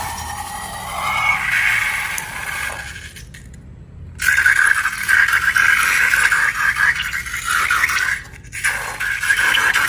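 Steady scraping, loudest in a long stretch from about four seconds in, with a short lull before it and a brief break near the end.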